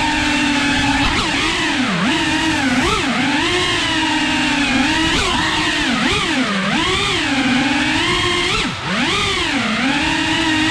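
FPV quadcopter's motors and propellers whining, the pitch swooping up and down as the throttle is chopped and punched, with several sharp dips and a brief drop in level near the end.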